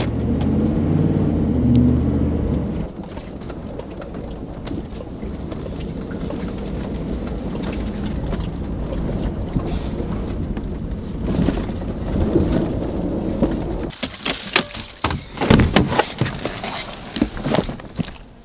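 Pickup truck driving, heard from inside the cab: steady engine and road noise, strongest in the first few seconds. Near the end the noise drops away and a run of sharp clicks, knocks and rustling follows as things are handled by hand.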